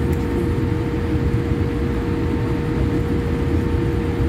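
Steady jet airliner cabin noise while taxiing after landing: the engines at idle and rumble from the wheels and airflow, with a steady low whine running through it.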